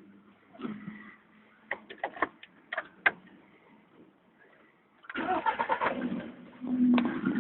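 Skoda Rapid's engine cranked and started from cold about five seconds in, after a few sharp clicks. It runs unevenly with the cold-start knocking that the owner hears for about ten seconds after each cold start, which the dealer judged nothing significant.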